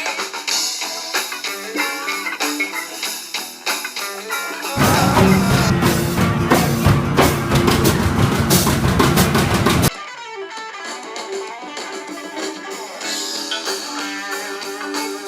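Guitar music. About five seconds in it cuts abruptly to a louder passage with drums and bass, which cuts off just as suddenly about five seconds later.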